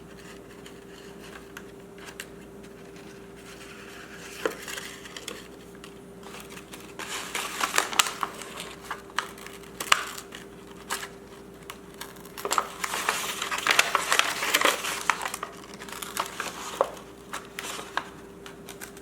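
Faux leather upholstery crinkling and rustling in bursts as it is handled and the thread is pulled through the awl holes during hand-stitching, with scattered sharp clicks.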